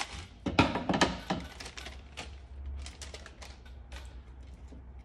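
Plastic packaging rustling and the light clicking and clatter of plastic drone propeller guards (hulls) being unpacked and handled on a cutting mat. The loudest clicks come in the first second or so, then quicker, softer clicks die away.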